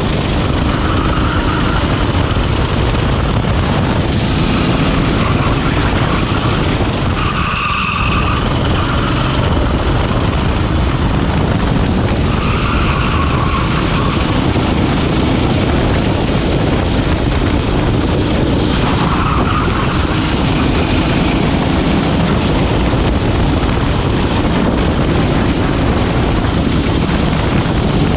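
Rental go-kart engine running hard at racing speed, heard from onboard the kart, easing briefly about eight seconds in.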